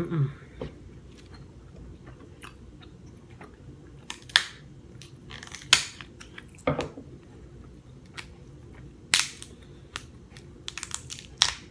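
King crab leg shell being cracked and broken open, with sharp cracks and snaps every second or two and a quick cluster of them near the end, and chewing in between.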